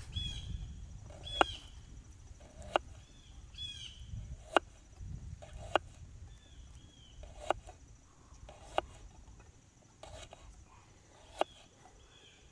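Campfire wood popping in sharp single cracks every second or two, with a small bird chirping repeatedly in short calls.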